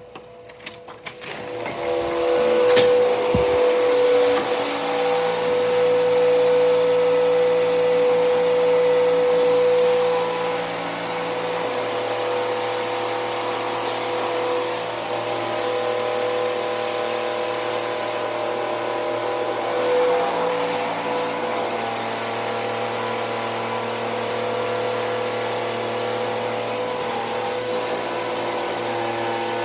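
Hoover vacuum cleaner switched on: a few clicks, then the motor spins up over about two seconds and runs steadily with a humming whine. The tone and level drop slightly about ten seconds in, with a brief swell near twenty seconds.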